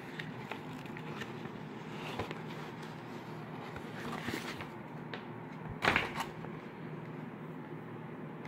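Glossy restaurant menu pages being handled and turned, with short paper rustles and a sharp flick about six seconds in, over steady room noise.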